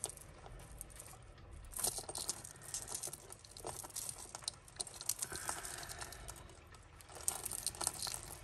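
Costume jewellery being untangled and handled by hand: chains and beads clinking and jangling in short, irregular clusters of light clicks.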